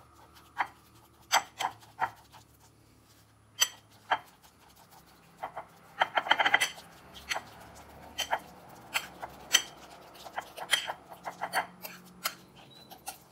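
Metal fork mashing ripe bananas on a ceramic plate: irregular clicks of the tines against the plate, with a short run of rapid scraping strokes about six seconds in.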